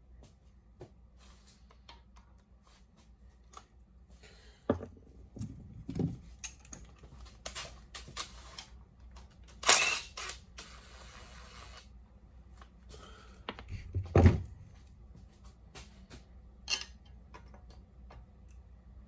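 Tools and parts clattering on a bare LS V8 engine block while its oil pickup tube is unbolted: scattered metal clinks and a few heavy thumps, the loudest about fourteen seconds in. About ten seconds in, a cordless drill/driver spins a bolt out for a second or two.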